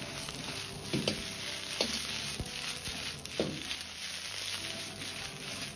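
Napa cabbage sizzling in hot oil in a wok as it is stir-fried to drive off its excess water. A metal ladle scrapes and tosses it in a few sudden strokes.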